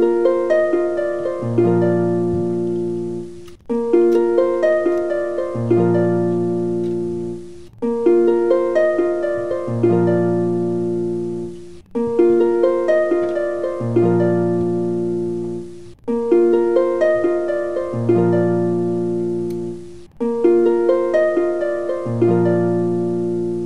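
Background music: a plucked melody over held low notes, a short phrase that repeats in a loop about every four seconds.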